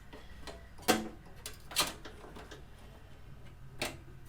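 Three sharp clicks, the first the loudest, as a PCIe Wi-Fi card and its metal bracket are fitted into a desktop PC's expansion slot.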